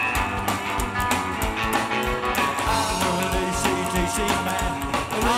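Rockabilly band playing live: electric guitar, upright double bass and drums over a steady, driving beat.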